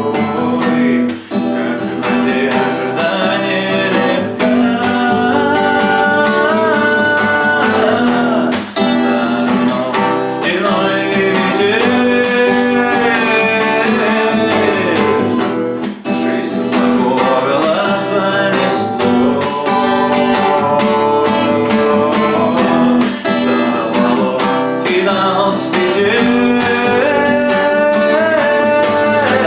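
Acoustic guitar strummed in a steady rhythm, with a man's voice singing the melody over it.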